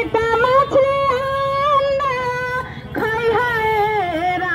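A woman singing a Bhojpuri protest song, drawing out long held notes that bend and waver in pitch between phrases.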